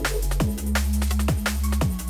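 Background electronic music with a fast drum beat and heavy, sustained bass.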